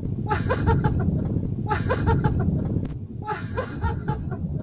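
Short bursts of voice that sound like laughter, about every one and a half seconds, over a steady low rumble.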